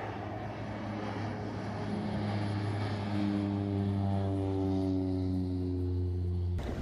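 Single-engine floatplane's propeller engine droning as it flies low past, growing louder with its pitch sliding slightly downward as it passes. The sound cuts off suddenly near the end.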